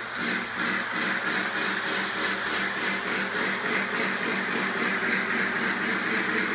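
Model Polar Express train running on its track: a steady mechanical clatter and hum with regular beats about three times a second.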